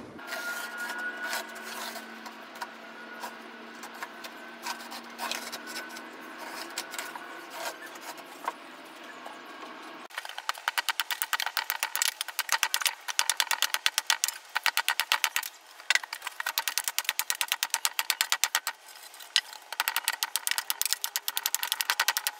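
A small motor hums steadily for about ten seconds, then it stops and a rapid run of sharp knocks follows: a hatchet chopping a pallet-wood piece against a wooden stump chopping block.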